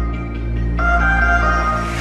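Background music only: held electronic chords over a steady low bass, changing chord a little under a second in.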